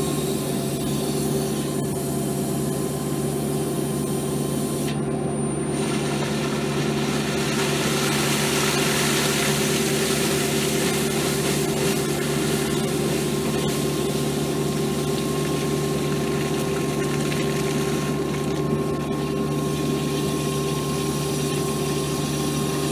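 An old water well being air-lifted: compressed air drives a tall column of water out of the wellhead with a rushing spray that builds a few seconds in and eases off near the end, purging built-up sediment from the well. Under it runs a steady engine hum.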